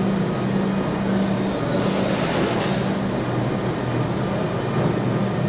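Steady machinery hum and hiss of a car assembly hall, with ventilation running, and a brief swell of hiss about two seconds in.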